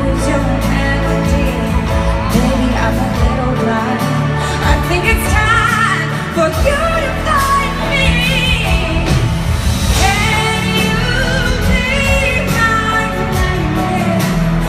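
Live pop ballad: a female lead voice sings wavering, ornamented runs over sustained band accompaniment, amplified through a concert PA.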